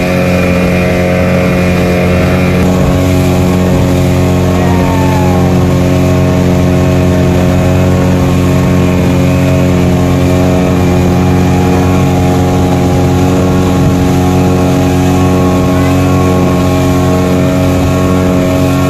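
Outboard engine of a small river speedboat running steadily at cruising speed: a constant loud drone with a strong, unchanging hum, over the rush of water past the hull.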